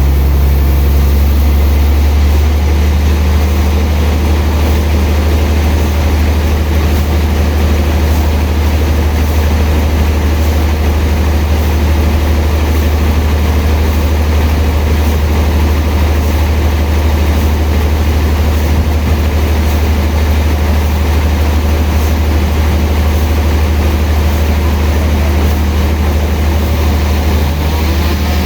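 Sawmill machinery running steadily while sawing a large log: a loud, deep hum that holds one pitch, with a rough noise over it.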